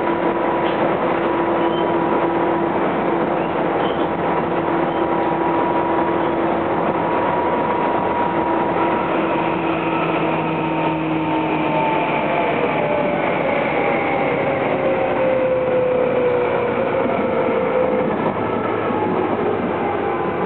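Tobu 10030 series electric train heard from inside a motor car: steady running noise of wheels on rail with a whine from the traction motors and gears. About halfway through, the whine starts to fall in pitch as the train slows.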